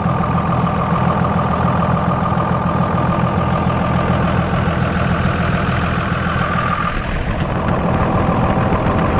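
5.9-litre 24-valve Cummins inline-six turbo diesel idling smoothly, just restarted after its fuel system was re-primed. A thin steady whine runs over the engine and fades out about seven seconds in.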